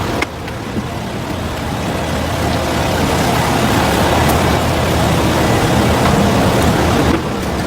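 Steady rushing noise that grows louder over several seconds, with abrupt breaks near the start and near the end.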